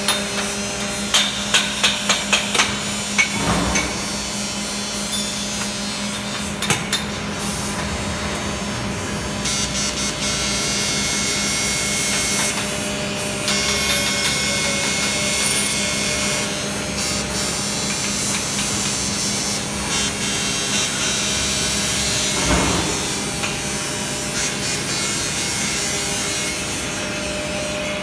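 A mallet knocking an aluminium truss section into its welding jig, a quick run of sharp blows in the first three seconds. Then the steady hiss of arc welding on the aluminium truss, with a constant hum underneath.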